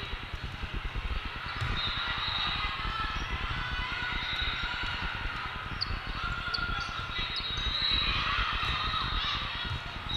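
Many voices, players and spectators, talking and calling out over an echoing hall, with occasional thuds of a volleyball being played.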